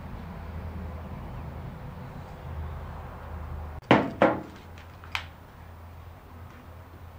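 Humidifier running with a steady low hum that drops away almost four seconds in, followed by two loud knocks in quick succession and a lighter click a second later as the plastic unit is handled.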